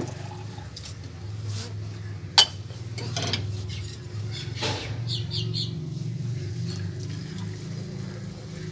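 Steel kitchenware clinking as chai is ladled through a strainer and poured between steel and ceramic cups, with one sharp metal clink about two and a half seconds in and a few softer knocks after. A steady low hum runs underneath.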